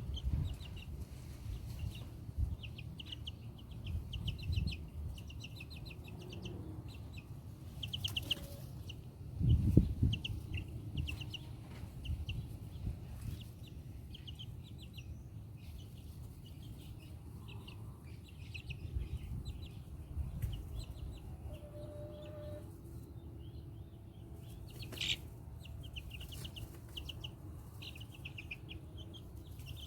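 Young Black Copper Marans chickens peeping, many short high calls repeated throughout. Low rumbles come and go beneath them, loudest about ten seconds in.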